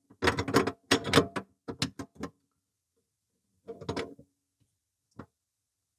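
Clicks and clunks of a Sepura food-waste separator being twisted onto its sink-flange mounting ring to lock it in place: a quick run of knocks in the first two seconds, another short rattle about four seconds in, and a single click near the end.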